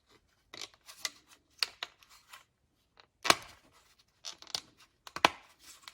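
Small plastic clicks and handling rustle as a trunk release switch is pressed and snapped into its plastic trim garnish. Two sharp clicks, about three seconds in and near the end, are the loudest.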